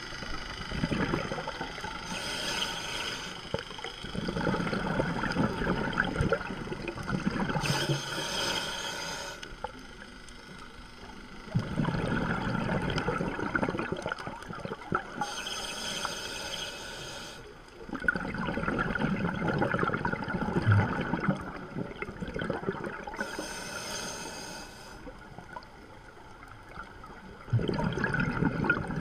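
A scuba diver breathing through a regulator underwater: four short hisses, one every seven seconds or so, alternating with longer stretches of bubbling and gurgling as the exhaled air escapes.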